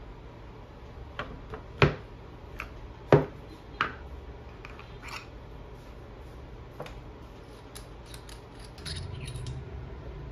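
Objects set down one after another on a wooden tabletop: a string of sharp knocks, the loudest about two and three seconds in. Near the end come light metallic clicks and clinks from a stainless-steel reusable coffee capsule being taken apart.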